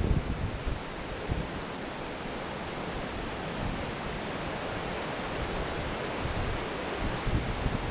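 Steady rush of flowing river water, with wind buffeting the microphone at the start and again near the end.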